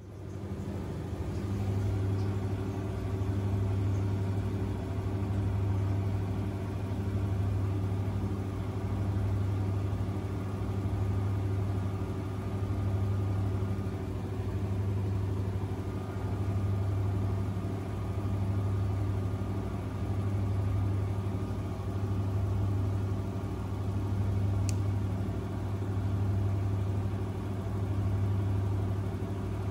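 Front-loading washing machine running with a steady low hum that swells and fades about every two seconds.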